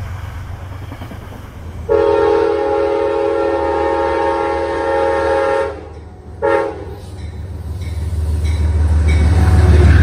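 Amtrak locomotive horn sounding one long blast of nearly four seconds, then a short one, over the low rumble of the train drawing closer and growing louder. Before the horn, the low rumble of another passing train fades.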